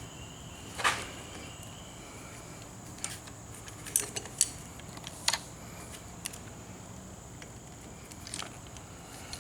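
Scattered light clicks and taps of small motorcycle handlebar parts being handled, the grip and clutch lever housing, about seven spread over several seconds, over a faint steady high tone.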